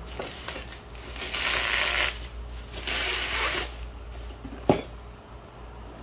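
Thin plastic bag rustling and crinkling as it is pulled off a cardboard box, in two spells of about a second each, then a single sharp knock a little before the end.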